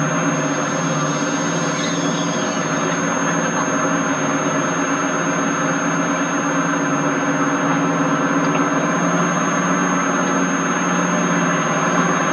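English Electric Class 55 Deltic diesel locomotive, with its twin Napier Deltic two-stroke engines, running steadily as it hauls its train away, a droning engine note. A constant thin high whine runs under it throughout.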